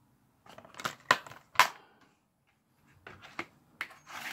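Plastic DVD thinpak cases being handled: a run of clicks and rattles, with a sharp snap about a second and a half in as a case is shut, then more clicks as the cases are moved about.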